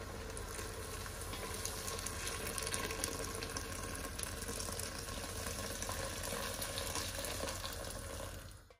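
Boiling water being poured into a pressure cooker of bubbling tomato sauce and meat: a steady rush of water with sizzling, which cuts off suddenly near the end.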